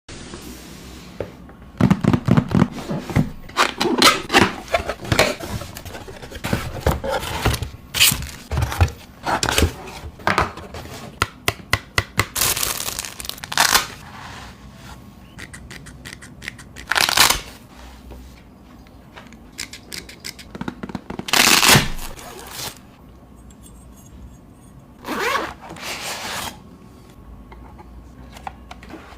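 Product packaging being unboxed by hand: plastic and cardboard rustling, scraping and tearing, with many sharp clicks and knocks of parts being handled, and a few longer ripping noises in the second half.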